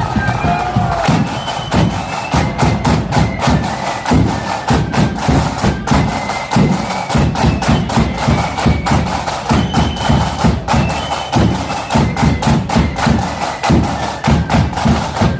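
Marching flute band playing: flutes carry a high melody over a dense, rapid beat of drums.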